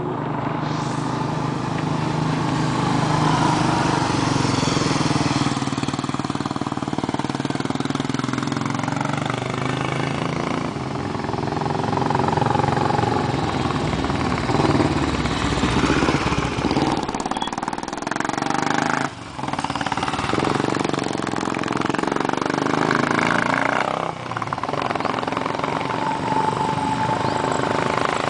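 Royal Enfield Bullet single-cylinder motorcycles ridden up the road one after another and passing close by, engine pitch rising and falling as they come through. Several bikes are heard at once towards the end.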